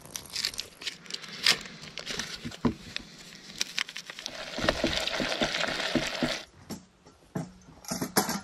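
Food-prep handling noise: a packet crinkling as it is torn and squeezed over a small cook pot, with clicks and knocks of handling on a camp table. In the middle, about two seconds of steady scratchy crinkling, then scattered clicks again.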